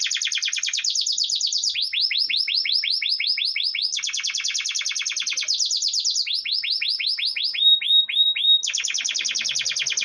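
Domestic canary singing a continuous song of rapid trills. Each phrase repeats one fast, downward-sweeping note many times, then switches to a new note every one to two seconds.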